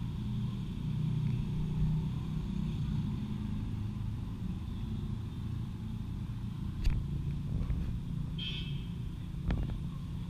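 Steady low rumble of outdoor background noise, with two sharp clicks and a brief high chirp in the second half.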